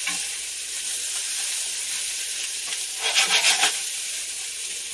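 Diced potatoes, carrots and celery sizzling steadily as they fry in butter, with a brief burst of a spoon stirring and rattling through them about three seconds in.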